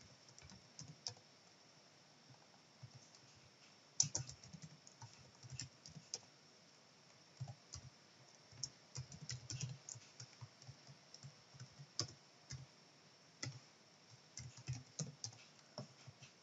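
Computer keyboard typing: faint, irregular key clicks in short runs with pauses between them.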